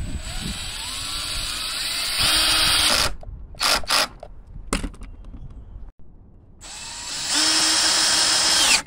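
Ryobi cordless drill driving bolts into a lawn mower's handle bracket. It makes two long runs that rise in pitch as the motor speeds up and then hold steady, with a few short bursts of the trigger between them.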